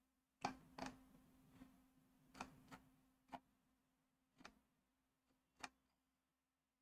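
About nine faint, irregularly spaced clicks of computer input used to scroll down a web page, over a faint steady low hum. The first two clicks are the loudest, and the clicking stops about six seconds in.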